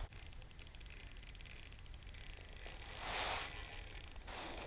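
Spinning reel being cranked while playing a large carp, a fast, fine ticking from the reel's gears, with a short rushing noise about three seconds in over a steady low rumble.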